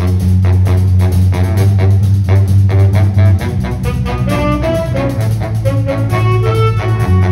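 Jazz band playing: saxophones and trombone play a melody over a drum kit beat and a steady low bass line.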